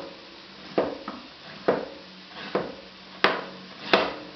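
Kitchen knife slicing a zucchini and striking the cutting board: about five sharp knocks, a little under a second apart.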